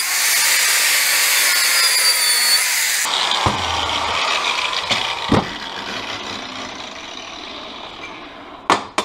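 Angle grinder with a 1/8 inch cutoff wheel cutting into a cracked metal baler bracket, opening the crack so the weld can penetrate; about three seconds in the cut stops suddenly and the sound fades away as the wheel spins down, with a few sharp knocks.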